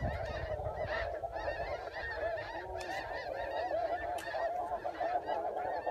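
A flock of geese honking, many short calls overlapping in a steady chorus.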